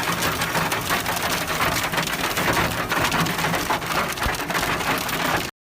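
Hail and heavy rain pelting down, a dense, steady patter of countless small hits. It cuts off suddenly about five and a half seconds in.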